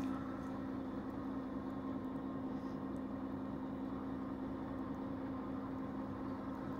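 A steady low mechanical hum over an even hiss, unchanging throughout.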